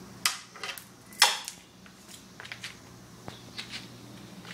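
Mower parts and their packaging being handled: a few sharp knocks and rustles, the loudest about a second in, then scattered faint clicks.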